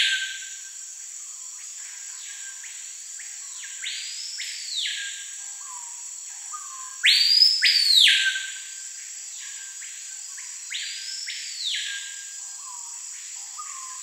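Screaming piha (Lipaugus vociferans) singing: long, loud whistles that sweep up and fall away, the loudest pair about seven seconds in, with fainter phrases before and after. A steady high insect drone runs underneath.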